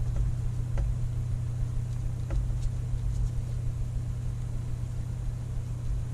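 A steady low hum from a running machine, with a few faint light clicks of handling.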